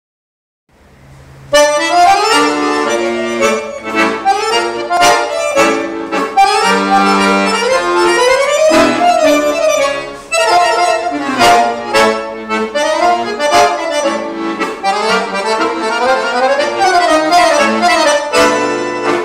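Scandalli piano accordion played solo: a quick melody on the keyboard with lower bass notes underneath, starting about a second and a half in, with a brief dip near the middle.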